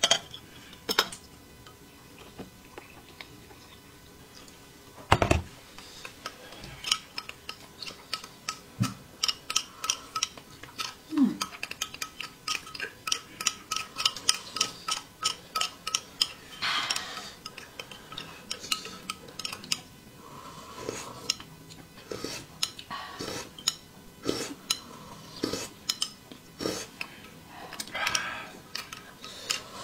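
Tableware clinking: a spoon knocking and tapping against a cup and bowls as instant corn soup is stirred. One heavy knock comes about five seconds in, then many quick taps follow.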